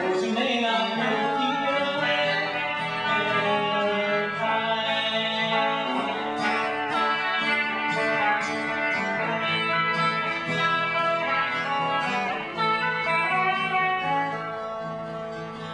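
Live acoustic folk music played on guitar, with long held melody notes over the playing.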